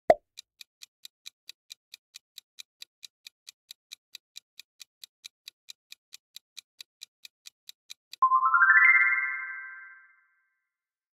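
Quiz countdown timer sound effect: a short pop, then quick even ticks at about four or five a second for some eight seconds. It ends in a bright rising chime that rings out and fades, the time's-up cue before the answer is shown.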